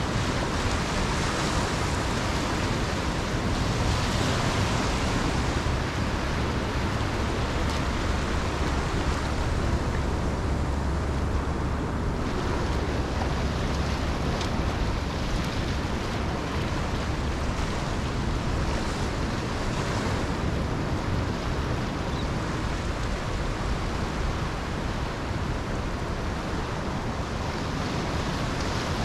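Surf washing up on a sandy beach: a steady rush of small breaking waves that swells and eases every few seconds, with the low rumble of wind buffeting the microphone.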